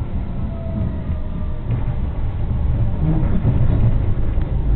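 Tram running, heard from inside the car: a steady low rumble of motors and wheels on the rails that gets a little louder about three seconds in.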